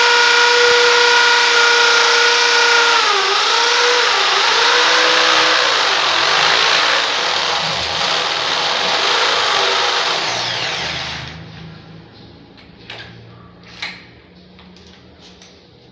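Power drill running steadily with a high whine as it bores into the tiled wall, its pitch sagging briefly about three seconds in under load. The drill stops about eleven seconds in, followed by a couple of light knocks.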